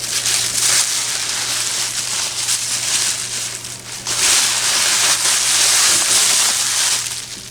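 Packing material crinkling and rustling as it is handled, in two long stretches with a short break about three and a half seconds in.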